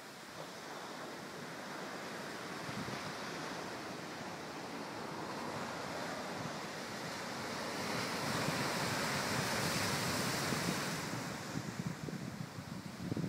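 Ocean surf breaking and washing over a rocky shore: a steady rushing that builds to a loud surge about eight seconds in and eases off a few seconds later. Near the end, wind gusts buffet the microphone.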